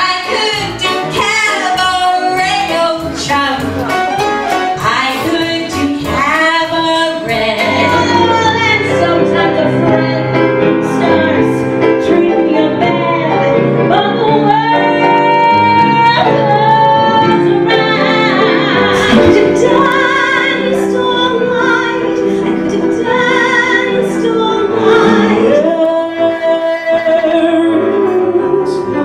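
Solo stage singers performing with musical accompaniment, with long held notes that waver.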